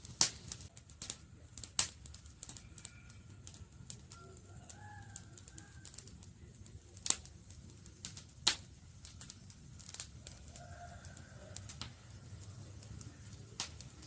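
Wood campfire crackling: scattered sharp pops and snaps over a low steady rush of the flames, the loudest pops just after the start, near two seconds, and about seven and eight and a half seconds in.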